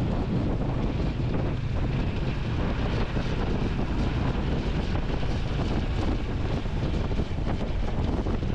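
Wind rushing and buffeting on the microphone of a moving vehicle, with steady engine and road noise beneath it.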